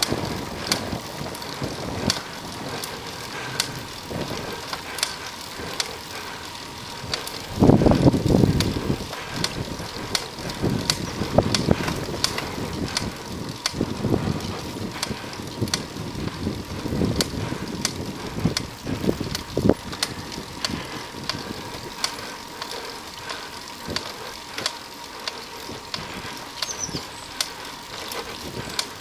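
Sound of riding a road bicycle as picked up by a camera on the bike: a steady rush of road and wind noise, sharp irregular ticks and rattles from the bike and mount, and several louder low rushes, the strongest about eight seconds in.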